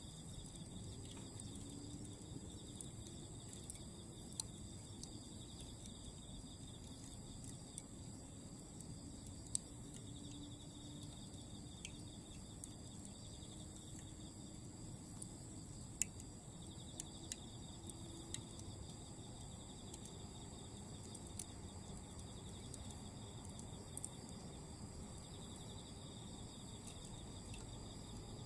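Autumn insects trilling steadily, several high calls at different pitches running together. Glowing cut charcoal crackles now and then with sparse sharp pops, the loudest about halfway through.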